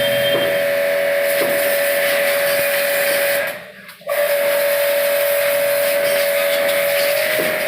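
High-pressure water-jet pump spraying with a steady hiss and a steady whining tone, cut off briefly about halfway through, then starting again.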